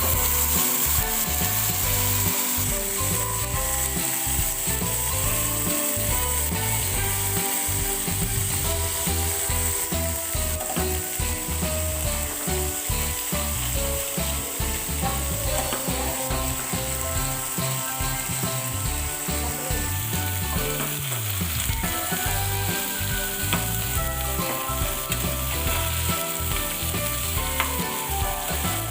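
Food frying in hot oil in a pan, with a steady sizzle throughout, over background music.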